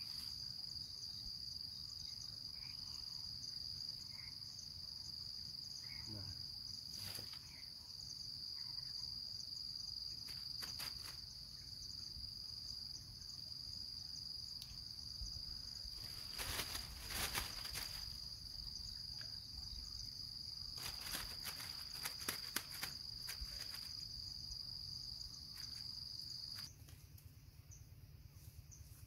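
Insects, crickets or cicadas, keeping up a steady high-pitched drone that cuts off suddenly near the end. Scattered short clicks and knocks sound over it.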